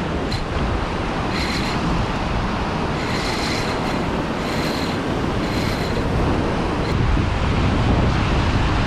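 Wind rumbling on the microphone over the steady wash of breaking surf, with a few short, higher whirring bursts about a second apart.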